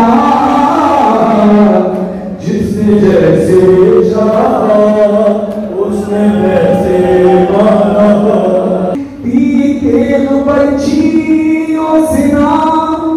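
Noha (Shia lament) chanted live by a male reciter over a loudspeaker system, with many voices of the crowd chanting along in chorus. The held, sliding lines break briefly about two seconds in and again around nine seconds.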